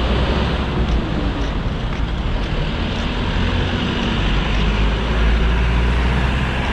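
Steady road-traffic noise: a continuous low rumble with a hiss over it.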